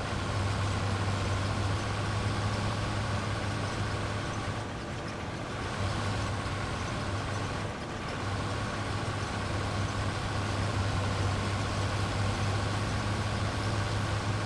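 Heavy diesel farm machinery running steadily under load, with a deep engine hum and a steady mechanical whine over it; the level dips briefly twice partway through.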